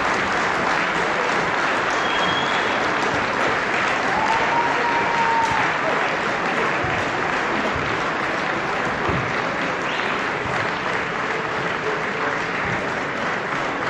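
A crowd of football supporters in the stand applauding steadily, with a few voices shouting over the clapping.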